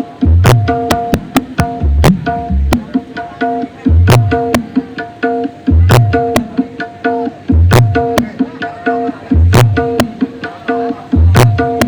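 Loud drum-led music played through a large sound-system rig: a deep bass hit roughly every two seconds, quicker hand-drum strokes between them, and steady held notes underneath.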